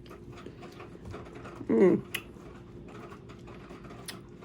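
One short, loud burp about two seconds in, with a wavering pitch, over light clicking mouth noises from eating.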